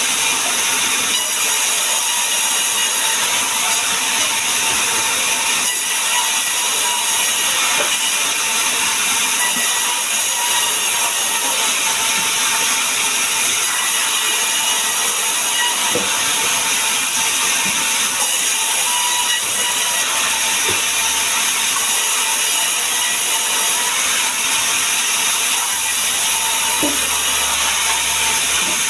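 A woodworking power tool running steadily: an even hiss with a faint steady whine, and a few faint knocks.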